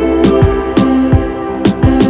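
Background music: a sustained chord over a drum beat of deep kick-drum strokes and sharp snare-like hits, several a second.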